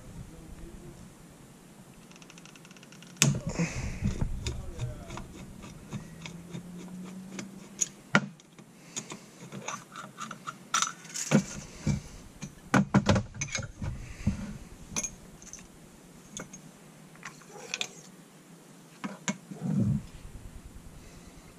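Hand-disassembly of a carburetor: a screwdriver turning out the top-cover screws, with scattered metal clicks and clinks as the screws, tools and the cover are handled.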